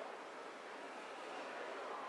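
Steady, even background ambience, a constant wash of noise with no single sound standing out.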